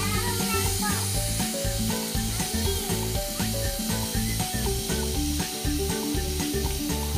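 Steam hissing steadily from a pressure cooker's vent as the regulator weight is lifted to release the pressure before opening, with background music over it.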